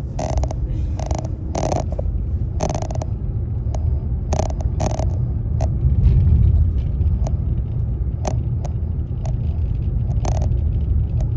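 Steady low road-and-engine rumble of a moving vehicle, heard inside the cab. Irregular short knocks and clatters sound over it, and the rumble swells briefly about six seconds in.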